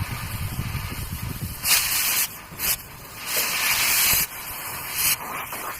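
Several short bursts of loud hissing, the longest about a second, with a low rumble underneath during the first second and a half.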